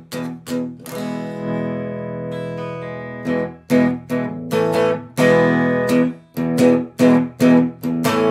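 Guitar chords strummed through a Vox amp, the signal passing dry through a switched-off Roland DEP-5 in bypass: the newly fitted bypass relays are passing the signal. A few quick strums, one chord left ringing for about two seconds, then steady strumming about twice a second.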